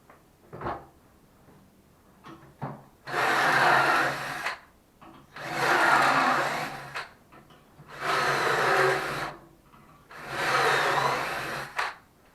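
An electric power tool running on wood in four short bursts of about a second and a half each, with a steady motor hum under the cutting noise. A few single knocks come before the first burst.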